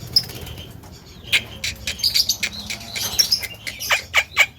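Javan myna calling: scattered short chirps and clicks, then near the end a rapid run of sharp notes, each sweeping down in pitch, several a second.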